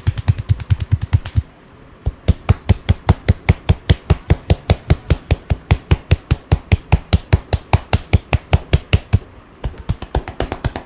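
Rapid percussive massage strokes: hands slapping and chopping on the body in a fast, even rhythm. The strikes before a short pause about one and a half seconds in are deeper thuds, those after it sharper slaps, with another brief pause near the end.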